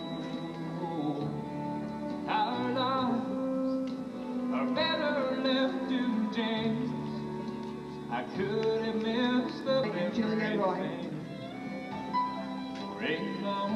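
Music playing: a slow piece with sustained, wavering melodic notes.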